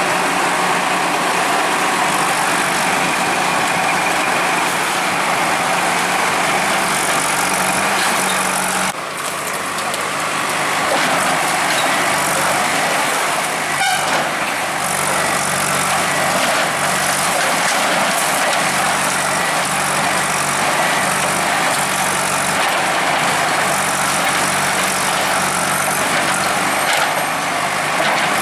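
Bulldozer's diesel engine running steadily under a dense, loud clatter of heavy machinery, dipping briefly about nine seconds in.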